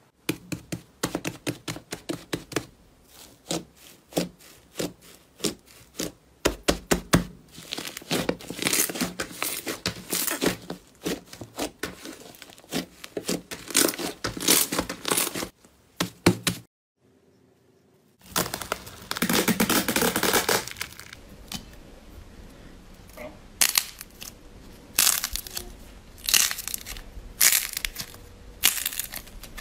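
Slime pressed, kneaded and squeezed by hand, giving many quick crackles and pops as its air bubbles burst, in clusters, with a pause of about a second and a half just past the middle.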